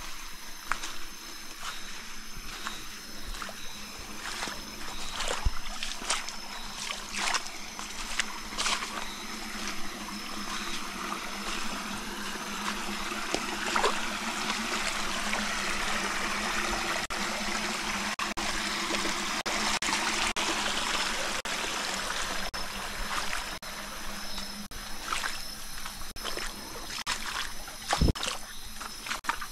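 Shallow creek water trickling and gurgling, with scattered short splashes and knocks; the water grows louder through the middle.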